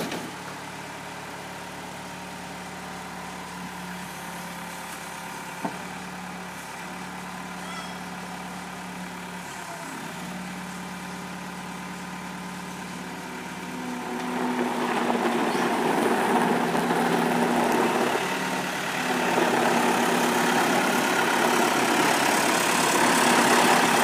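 Case 430 skid steer's diesel engine running steadily as the machine moves about on gravel, getting louder about fourteen seconds in as it comes up close. A single short click about five seconds in.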